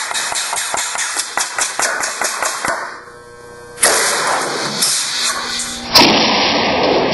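A rapid run of sharp clicks for about three seconds. Then a ball air cannon fires with a sudden bang and a rush of air that lasts about two seconds. A second bang with rushing air comes about six seconds in.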